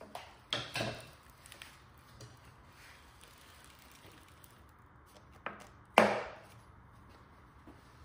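Folding arm of a DJI Agras T40 spray drone being swung out by hand on its hinge. A couple of knocks come within the first second, then a small click, and about six seconds in a loud, short-ringing clack as the arm lock clamps onto the arm.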